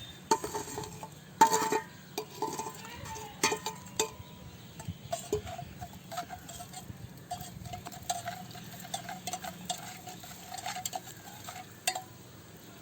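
A spoon stirring and clinking against a vessel as sweetener is stirred into the hot strained herbal decoction, with scattered sharp clinks, the loudest about a second and a half and three and a half seconds in.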